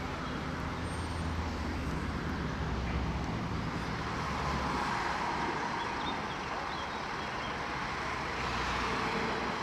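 Idling vehicle engines and road traffic noise: a steady low engine hum that fades about halfway through under a constant haze of traffic sound.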